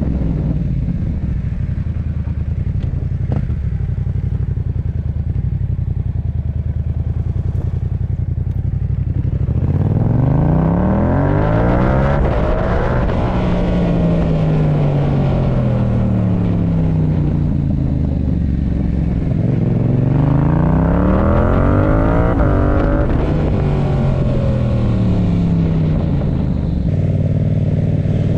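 Yamaha MT-07's 689 cc parallel-twin engine breathing through a MIVV GP Pro exhaust. It runs at a steady pitch for about nine seconds, then twice revs up and eases off as the bike is ridden, before settling to a steady note near the end.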